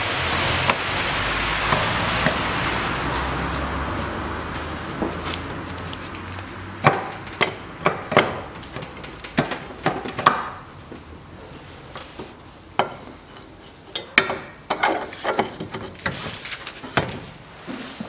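Irregular metallic knocks and clicks as a CV drive shaft is handled and fitted into place. Over the first few seconds a steady hiss fades away.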